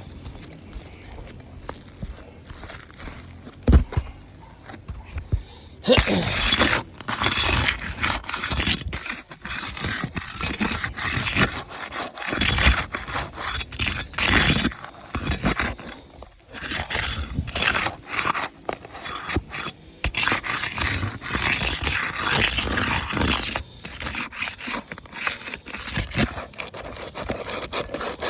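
Asphalt roof shingles being worked loose by hand, breaking their seal and scraping against the gritty shingle surface in repeated uneven strokes. The scraping starts about six seconds in after a quieter stretch with a single knock.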